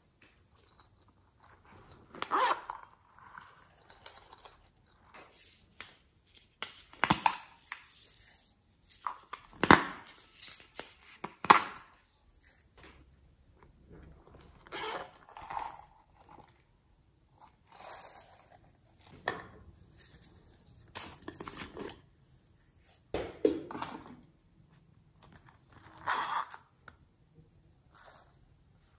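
Silicone pop-it fidget toys and foam squishy toys handled and pressed by hand: irregular crinkles, pops and scrapes, with a few sharp clicks standing out in the middle.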